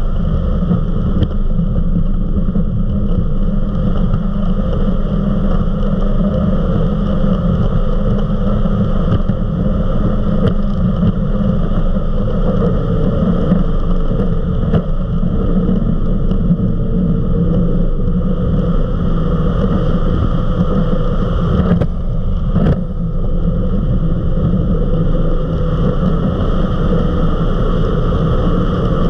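Eliminator 31 XO Speedster powerboat running flat out at about 60 to 70 mph: a steady engine drone mixed with the rush of water and wind over the hull.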